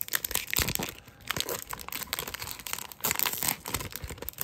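Hockey card pack being torn open by hand, its wrapper crinkling and crackling in a dense, irregular run.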